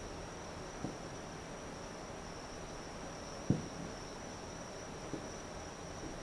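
Distant fireworks shells bursting as four dull booms, the loudest about three and a half seconds in, over a steady high trill of insects.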